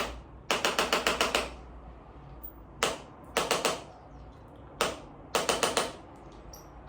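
Chiropractic impulse adjusting instrument delivering thrusts to tight joints of the hips and spine: sharp mechanical clicks, fired as a single click followed by a quick run of several clicks, about seven a second, three times over.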